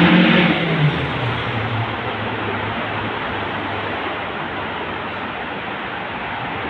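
A vehicle going by with a steady rushing noise. Its low engine or motor tone drops in pitch during the first second.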